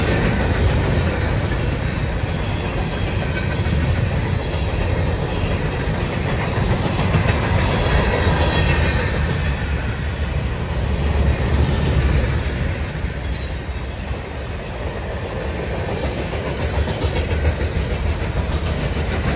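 A train rolling past close by, its wheels on the track making a steady, loud rumble.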